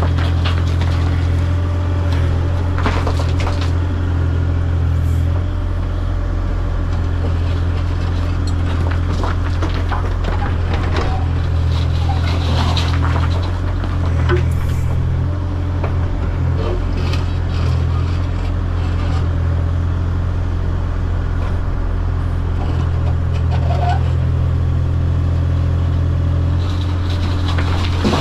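An engine running steadily at one constant speed, giving a deep, even drone, with scattered short knocks and clanks over it.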